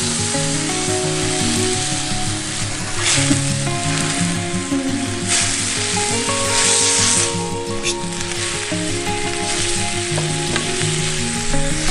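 Food frying in hot oil in a pan, a steady sizzle that swells about three seconds in and again for a couple of seconds in the middle, under background music with a plucked-sounding melody.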